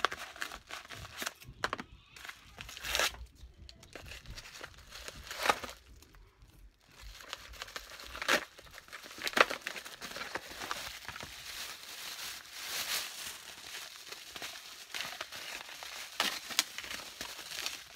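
A kraft paper mailer being torn open and rustled, with sharp irregular tearing strokes, then the crinkling of plastic wrapping as the case inside is handled.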